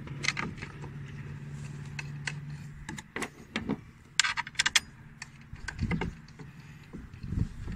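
Metal bolts clicking and clinking against the metal flange of a new radiator fan clutch as they are handled and set into the fan's bolt holes, with a quick run of clicks about four seconds in and a couple of duller knocks near the end. A steady low hum runs under the first three seconds, then stops.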